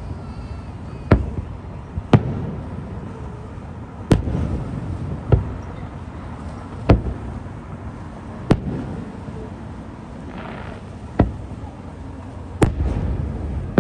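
Aerial fireworks shells bursting at a distance: about eight sharp bangs, irregularly spaced a second or two apart, each followed by a rumbling echo.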